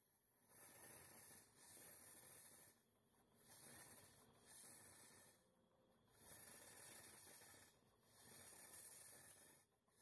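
Propane thermal fogger giving faint hissing bursts, about six in a row, each a second or so long, as the trigger is pumped to push the oxalic acid and alcohol solution through the heated coil.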